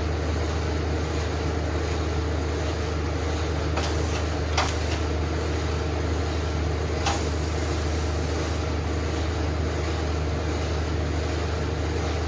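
Steady low machine hum, with a few sharp clicks about four seconds in and a short hiss about seven seconds in.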